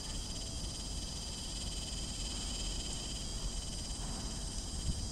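Steady, high-pitched chorus of calling insects with a fine pulsing trill, over a low rumble; the chorus cuts off suddenly near the end.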